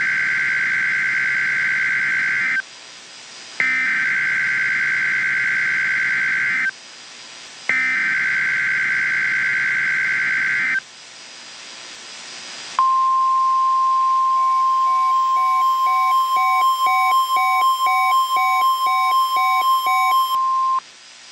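Emergency Alert System alert signalling: three buzzy digital SAME header bursts, each a few seconds long with a second's pause between them, mark the start of an emergency broadcast. They are followed by a steady high attention tone of about eight seconds, the NOAA Weather Radio 1050 Hz alert tone. A rapid electronic beeping of about two beeps a second runs under the tone.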